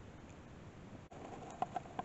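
Faint room tone, then about a second in a few light clicks of a metal spoon against a small ceramic bowl as mustard is scraped out of it.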